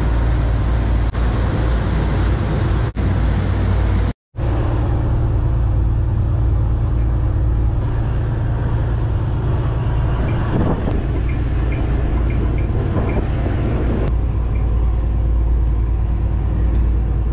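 Steady deep drone of a large steel fishing boat's engine running underway, heard inside the cabin. The sound breaks off for an instant about four seconds in.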